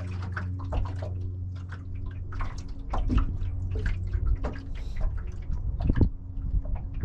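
Small waves lapping and slapping irregularly against a fishing boat's hull, over a steady low hum.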